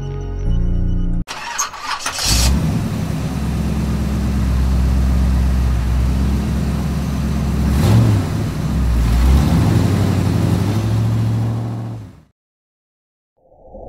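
A single-cylinder motorcycle engine starts about two seconds in, then runs steadily with a short change in pitch about eight seconds in, and cuts off suddenly near the end.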